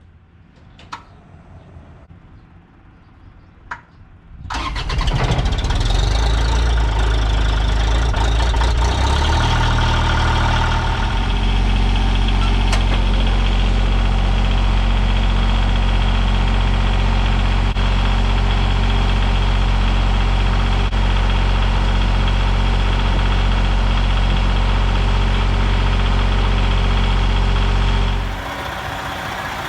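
Skid loader's diesel engine cranked and started in the cold, catching about four seconds in and settling into a steady loud idle. Near the end the level drops suddenly.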